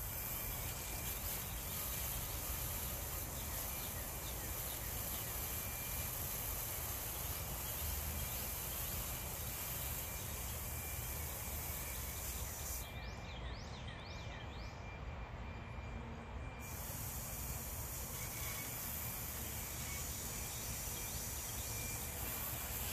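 Steady outdoor background noise: an even hiss, with a few faint short high chirps.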